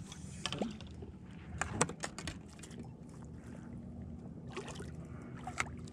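Bow-mounted electric trolling motor humming steadily under water noise around the boat, with a few sharp clicks and knocks from handling the rod and reel.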